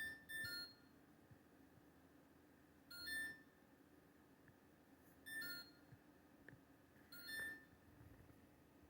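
LG LFX25960ST refrigerator's control panel beeping by itself: short two-note electronic chirps, five in all, the first two close together and then about every two seconds. The beeping comes with no one touching it and is the fault the owner is trying to fix.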